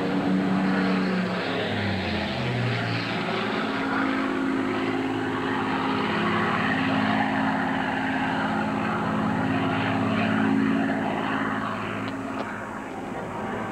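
Supermarine Spitfire's piston engine and propeller droning overhead, dropping in pitch about two seconds in, then holding a steady drone that fades near the end.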